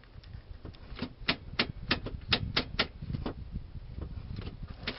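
Irregular run of sharp clicks and taps, about two to three a second, over a low rumbling handling noise.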